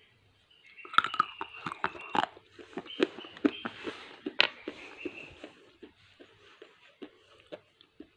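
A small piece of gray roasted clay bitten and chewed close to the mouth: a run of sharp, crisp crunches starting about a second in, then softer, sparser chewing clicks toward the end.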